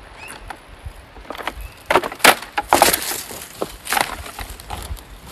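Dry twigs and ground debris cracking and crunching in a quick irregular series, the loudest snaps about two and three seconds in.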